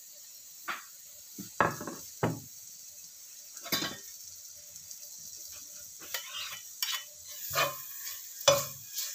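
Ground spice paste sautéing in hot oil in a non-stick frying pan: a steady light sizzle, with a spatula scraping and knocking against the pan in short separate strokes, the loudest near the end. This is the paste being fried until fragrant.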